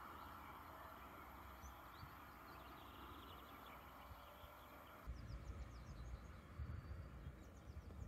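Faint outdoor ambience with small birds chirping now and then. About five seconds in, wind starts buffeting the microphone in irregular gusts.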